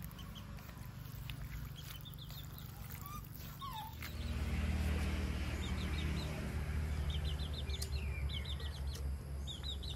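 Outdoor ambience: birds chirping in short rapid series, over a low steady rumble that swells about four seconds in.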